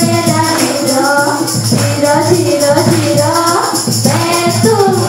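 Loud music: a sung or played melody over a steady, quick beat with jingling high percussion.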